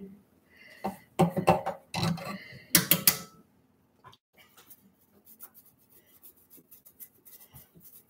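A toothbrush scrubbing the vinyl head of a reborn doll to take off a paint mistake: a run of quick, faint scratchy strokes, after a few loud clattering knocks against the sink in the first three seconds or so.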